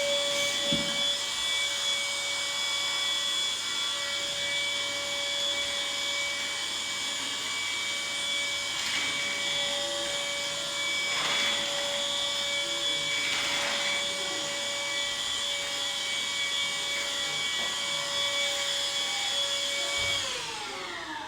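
Cordless handheld vacuum cleaner running with a steady high motor whine, with a few brief rushes of air in the middle. About twenty seconds in it is switched off and the motor winds down, its whine falling in pitch.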